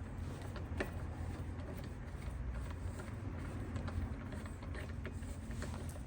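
Wheel nuts being threaded onto a car's wheel studs by hand with a socket: a few light, scattered metallic clicks over a steady low hum.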